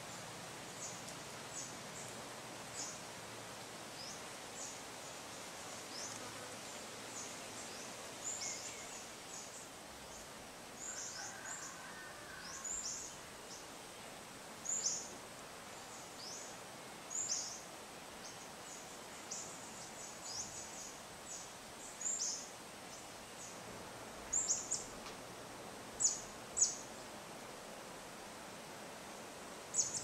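Afternoon nature ambience: small birds give short, high, downward-sliding chirps again and again, with a few louder ones near the end. Beneath them runs a steady hiss of insects and light wind.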